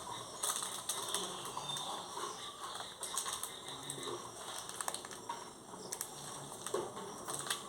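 Kitchen knife chopping onion and green chilli on a cutting board: a run of light, irregular taps.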